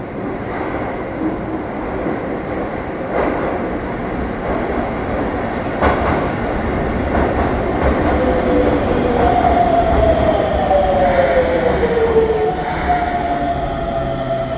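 Shibayama Railway 3600-series electric train (set 3668F) running, with a couple of sharp clacks from the rails and a whine that slides down in pitch in the second half.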